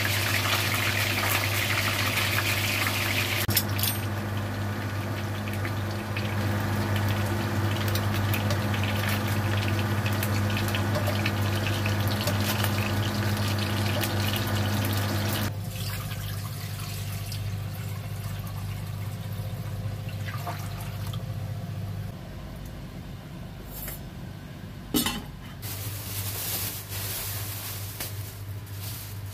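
Fish head and fish pieces frying in oil in a wok: a steady sizzle over a low, steady hum. About halfway through, the sizzle drops away, and the hum later stops; there is a single sharp knock near the end.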